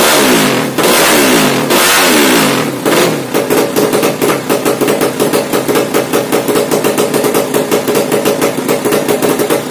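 Yamaha Jupiter 200cc sleep-engine motorcycle on a new open KNT racing exhaust: two quick throttle blips whose revs fall away, then idling with a choppy, pulsing exhaust beat.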